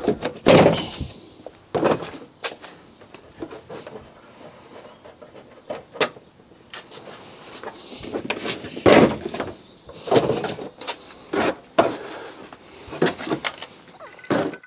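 Irregular clunks and knocks with short scraping sounds in between, from hands-on work around a car; the loudest come about half a second in and again around nine and ten seconds.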